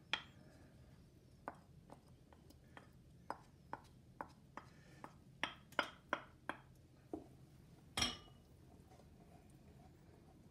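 A wooden spoon scraping melted butter off a plate into a ceramic mixing bowl: a run of light taps and clicks of wood on ceramic, two or three a second, with one louder knock about eight seconds in, then quiet.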